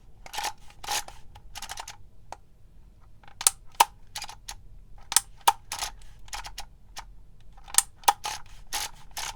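Handheld embossing label maker clicking in irregular groups of sharp clicks as characters are dialled and pressed into the label tape.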